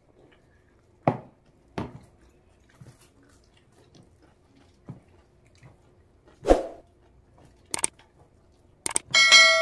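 A hand mixing rice and curry on a plate: a few short, separate wet squishes and knocks. Near the end, a click and then a loud, ringing bell chime from a subscribe-button sound effect.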